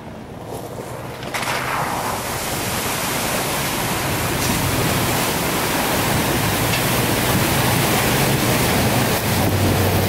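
Dodge Ram 2500 pickup with a Hemi V8 driving through a large muddy puddle: a loud, steady rush of splashing water starts about a second in, with the low hum of the engine underneath as the truck passes close by.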